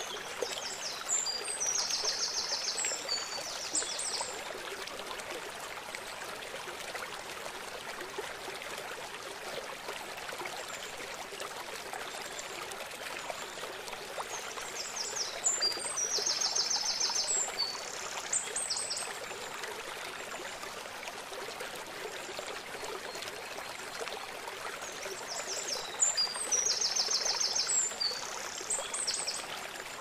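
Mountain stream rushing steadily over rocks in small cascades. A bird sings a short, high-pitched, rapidly trilled phrase three times over the water, near the start, in the middle and near the end.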